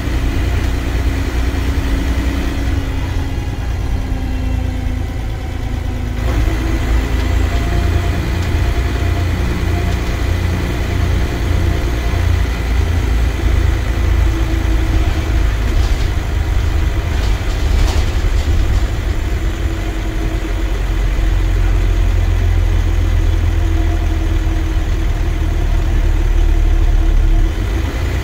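Dennis Trident double-decker bus's diesel engine and transmission running under way, heard from inside on the upper deck. The engine note shifts as the bus drives. A louder low drone builds from about two-thirds in and drops off suddenly just before the end.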